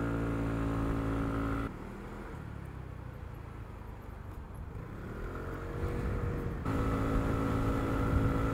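Lexmoto Aura 125cc scooter engine running at a steady speed while riding, cut off abruptly a little under two seconds in. A quieter stretch of wind and road noise follows, in which the engine rises in pitch as it speeds up. About two seconds before the end, the steady engine note returns just as suddenly.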